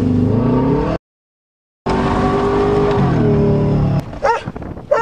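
Subaru Legacy's boxer engine running under way, heard from the driving car, with a brief dropout of the sound about a second in and the engine note falling in pitch around three seconds in as it eases off. Near the end the engine sound stops and a dog barks twice.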